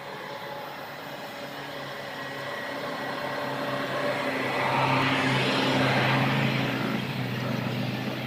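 A small engine running with a steady hum, growing louder to a peak about five or six seconds in and then fading.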